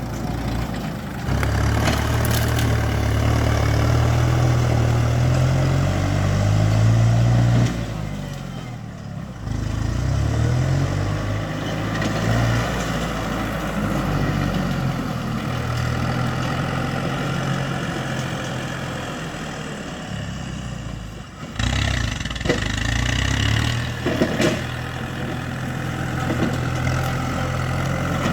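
Kubota MU5702 tractor's diesel engine running and working, revving up for a couple of seconds about six seconds in and dropping back, dipping briefly near the twenty-second mark, then running steadily again.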